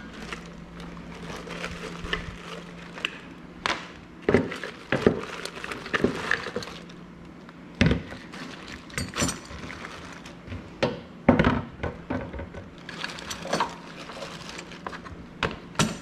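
Irregular knocks, clunks and metallic clinks of hand tools and car parts being handled, a dozen or so sharp hits spread unevenly, the loudest around the middle. Under them a low steady hum fades out after about two seconds and comes back near the end.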